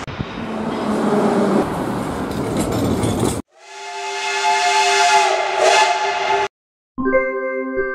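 Jet engine noise from a business jet on the runway, which cuts off suddenly after about three seconds. Then a steam locomotive whistle blows a steady chord over hissing steam for about three seconds. After a short silent gap, music with chime-like notes starts near the end.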